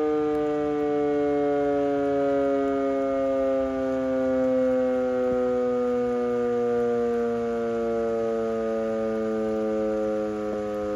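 Rotating outdoor fire warning siren (12-port rotor) winding down after its noon blast: its wail slides slowly and steadily lower in pitch.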